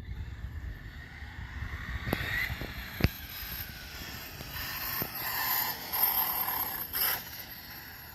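Electric-converted OFNA Mutilator RC truck running, its motor and gears whining in pitch that rises and falls with the throttle. Several sharp knocks sound over it, the loudest about three seconds in.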